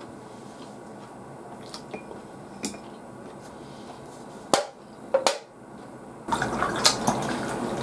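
Beer poured from a can into a glass, a splashing, fizzing pour starting about six seconds in and running on. A couple of sharp clicks come just before it.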